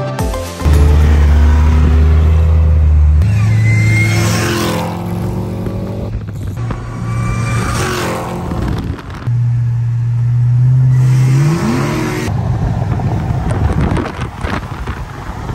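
Cars driving at speed, engines revving and whooshing past, with one rev rising sharply about three-quarters of the way through. Music with a deep, steady bass plays underneath.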